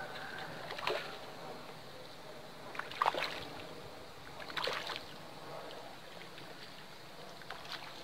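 A hooked fish splashing at the surface in several short bursts as it is played close to the boat, over steady water lapping.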